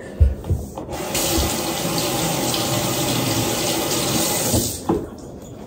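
Kitchen tap running into the sink for about four seconds, rinsing a tomato, then turned off; a couple of light knocks come just before the water starts.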